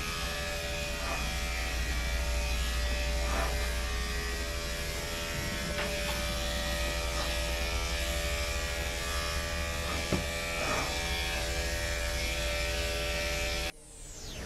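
Andis electric dog grooming clipper running with a steady buzz as it shears the coat on a dog's hind leg. It cuts off abruptly near the end.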